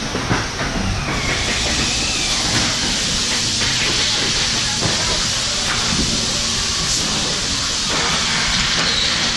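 Factory floor noise: a steady, loud hiss that grows stronger about a second in, with a faint low hum underneath.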